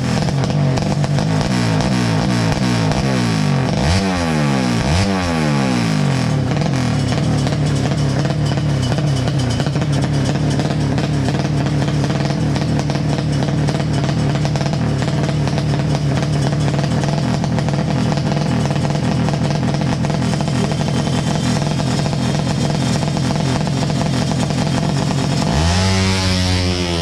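Four-stroke underbone drag bike with a horizontal engine running at the start line: two quick rev blips about four seconds in, then held at steady revs for a long stretch. Near the end it launches, the pitch climbing sharply as it accelerates away.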